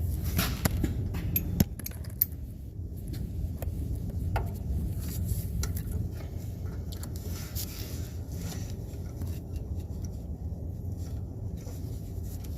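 Scattered light metallic clicks and clinks of hand tools and parts being handled, over a steady low hum.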